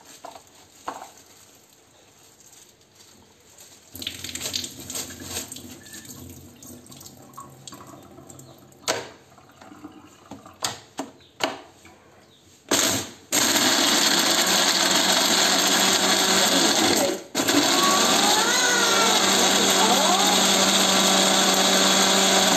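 A small electric blender grinds a batch of field crabs with water into a slurry for crab soup. After scattered clicks and knocks as the jar is handled, the motor gives a short burst about halfway through, then runs loudly and steadily, stopping for a moment once before running on.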